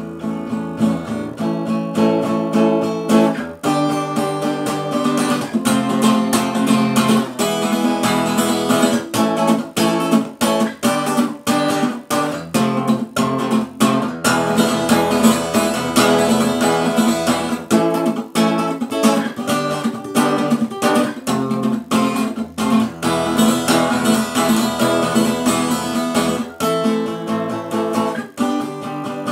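Acoustic guitar strummed, a steady run of changing chords with quick repeated strokes.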